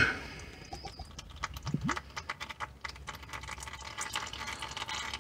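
Used engine oil dribbling from the oil filter mount into a drain pan: faint, irregular drips and ticks, with a short low rising sound about two seconds in.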